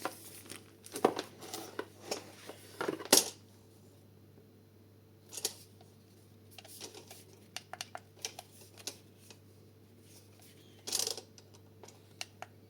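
Packaging and plastic being handled while unboxing a hair dryer: scattered rustles and knocks, with a run of small light clicks in the middle.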